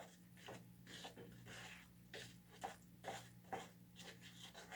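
Faint, repeated scraping strokes of a palette knife stirring wet white Portland cement in a measuring cup, roughly two to three strokes a second, over a steady low electrical hum.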